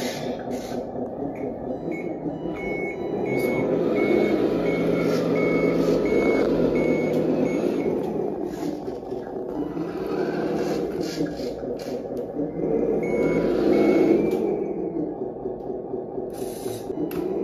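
Onboard sound system of a 1/14-scale RC tractor truck playing a diesel truck engine sound that swells louder at times as the truck is driven. A reversing beeper sounds in steady repeated beeps twice, a few seconds in and again about three-quarters through.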